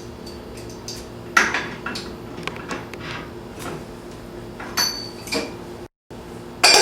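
Metal tools and steel drill parts clinking and knocking as a core bit is changed out on a core drill, a handful of separate sharp knocks over a faint steady hum.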